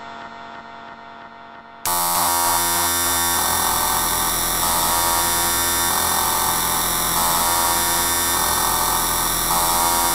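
Extratone electronic music at 10000 BPM: a quieter tonal passage fades out, then about two seconds in a loud wall of kick drums cuts in, so fast that the beats fuse into one continuous buzzing tone. The pitch of the buzz shifts in blocks every second or so.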